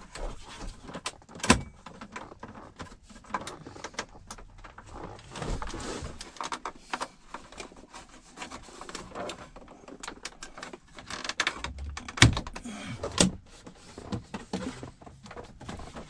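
Plastic clicks and knocks of dashboard trim and the HVAC control panel being handled and pressed back into a truck's dash, with sharper knocks about a second and a half in and again about twelve and thirteen seconds in.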